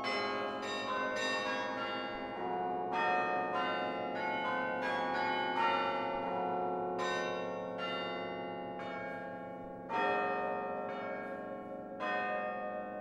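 Carillon bells played from the baton keyboard: struck notes and chords ring out over the long hum of a low bell. The notes thin out, then two loud chords are struck near the end and left to decay.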